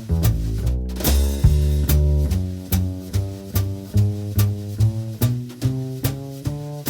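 Background music: an upbeat instrumental with a walking bass line and a steady beat.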